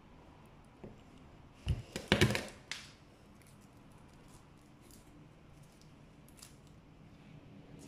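Knife and garlic clove handled on a plastic cutting board: a quick cluster of sharp clacks and crunches about two seconds in, then a few faint light cuts as the clove is sliced.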